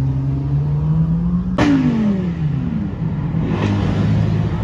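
Car engine revving with a steady, slowly rising note, then a sharp crack about a second and a half in, after which the engine's pitch falls away and settles into a lower steady note.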